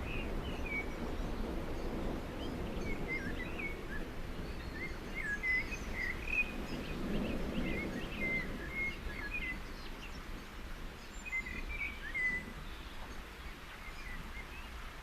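Many small birds chirping in short calls over a low, steady outdoor rumble, thinning out near the end.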